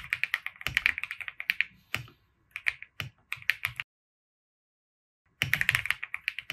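Typing on a computer keyboard: quick runs of keystrokes, then a pause of about a second and a half past the middle before the typing resumes.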